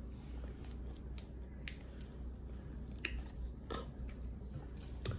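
A small plastic hot sauce packet being bitten and torn open with the teeth, giving a few faint, scattered crinkles and clicks over a low steady hum.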